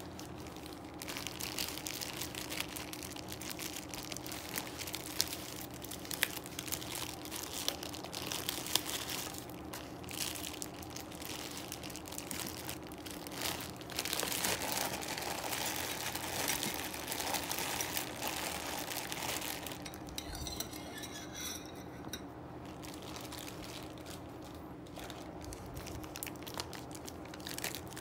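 Plastic bag crinkling and rustling as packaged yellow noodles are handled and tipped into a ceramic bowl, with occasional light clinks of dishes.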